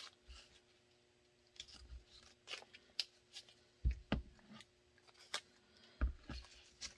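Faint handling sounds as a tape-wrapped pistol mold and a wooden retention plate are moved about on a cutting mat: small clicks and rustles of painter's tape, with a few light knocks, the clearest about four and six seconds in.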